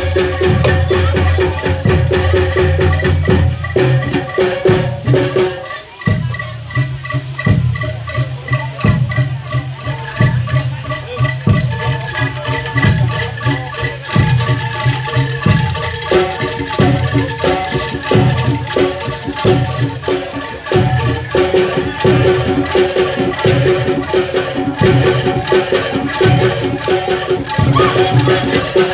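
Live gamelan-style jaranan accompaniment: drums beat a steady rhythm under ringing mallet percussion and sustained melodic tones.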